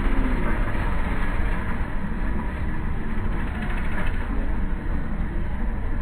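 Diesel engines of a Mahindra tractor straining in deep mud and a JCB backhoe loader pushing it out, a steady heavy rumble.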